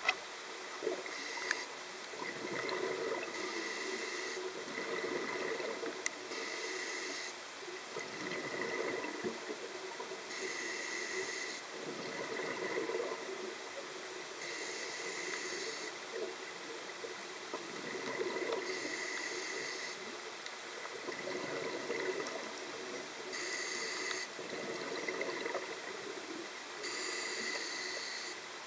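A scuba diver breathing underwater through a regulator: a slow, even cycle of hissing breaths and bubbling exhalations, repeating about every four seconds.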